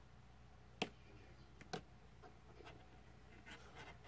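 Thin jewelry wire being wrapped by hand around a small woven earring piece: two sharp clicks about a second apart, then softer ticks and light scratching, all faint.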